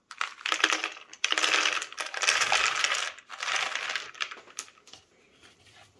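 Dry dog kibble poured from a plastic tub into a slow feeder dog bowl, rattling and pattering against the bowl's raised lobes in three pours over about four seconds, followed by a few stray pieces clicking.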